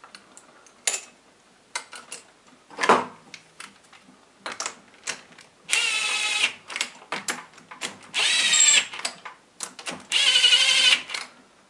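A few small metal clicks as the head stud nuts and socket are fitted. Then a power drill-driver with a socket runs three short bursts of about a second each, its motor whine wavering in pitch, spinning the cylinder head stud nuts down on a small single-cylinder pushrod engine.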